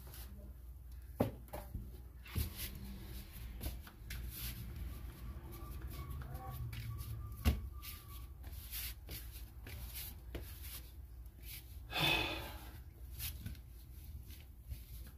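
Bread dough being kneaded and pressed by hand on a floured plastic cutting mat: soft rubbing and pressing with scattered knocks, the sharpest about a second in, about two and a half seconds in and about seven and a half seconds in. About twelve seconds in there is a short rushing noise.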